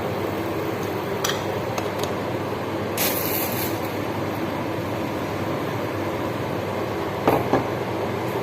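Steady noise of stove-top cooking, with a few sharp clicks scattered through it and a short hiss about three seconds in.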